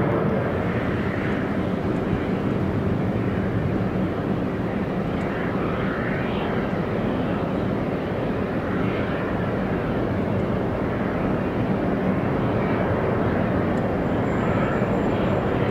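Jet airliner engines, a loud steady rush of engine noise with faint shifting sweeps in its upper range.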